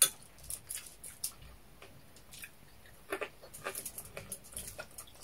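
Close-up chewing and mouth sounds of people eating by hand: an irregular string of short, wet smacks and clicks, the sharpest right at the start.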